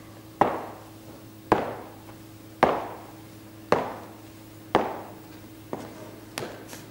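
Heavy, evenly spaced thuds on a hollow wooden stage floor, about one a second and each ringing briefly in the hall, then a few lighter knocks near the end, over a steady low hum.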